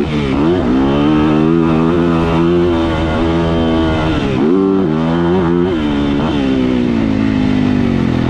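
Yamaha YZ450F motocross bike's 450 cc four-stroke single-cylinder engine running hard on throttle. Its pitch dips and climbs again as the throttle is rolled off and back on: just after the start, around four and a half seconds in, and again near six seconds.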